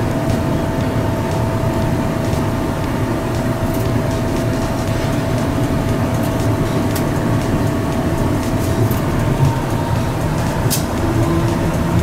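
Running noise of a Yokohama Seaside Line rubber-tyred automated guideway train cruising along its elevated track: a steady low rumble with a steady whine over it and faint ticks. A second, lower hum comes in near the end.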